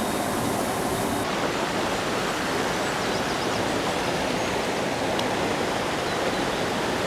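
Mountain stream rushing over rocks in small cascades: a steady rush of water.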